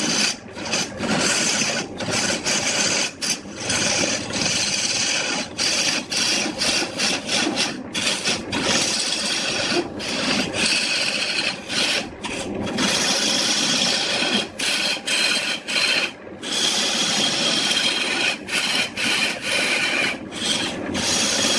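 Turning tool cutting into a spinning wood blank of glued-up firewood sticks on a lathe: a steady rasping hiss of shavings peeling off, broken by many brief gaps where the cut lets up.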